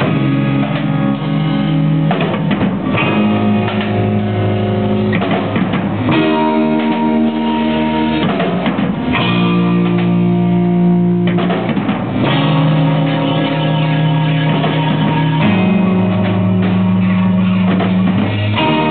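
Live rock band playing: strummed guitars over bass and a drum kit, with held chords changing about every three seconds.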